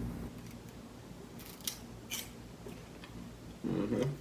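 Potato chip bag and chips giving a few sharp, short crackles, about a second and a half in and again around two seconds, with a louder muffled sound near the end.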